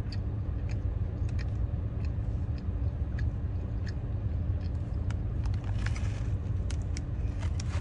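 Chewing and biting while eating, heard as scattered short clicks and crunches over the steady low rumble of a car interior with the engine running.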